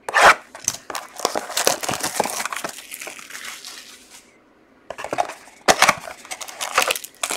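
Plastic shrink-wrap crackling and tearing as a sealed trading-card box is unwrapped by hand, with a short lull about four seconds in, then more crinkling and clicks as the box is handled and opened.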